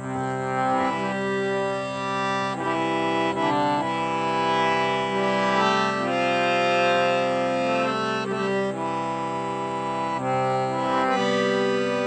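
Indian hand-pumped harmonium playing a slow hymn tune: its free reeds sound sustained chords that change every second or so over a held low note.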